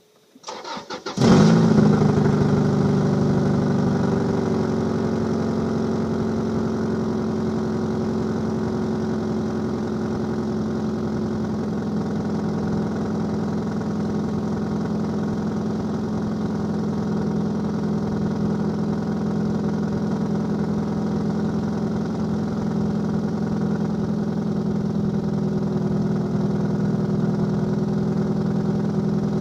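2002 Subaru Legacy GT's 2.5-litre flat-four cranks briefly, catches a little over a second in with a loud flare, then settles into a steady idle. The car has an exhaust leak.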